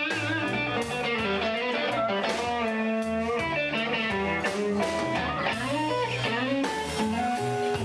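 Blues-rock music led by electric guitar with bent notes over a bass line.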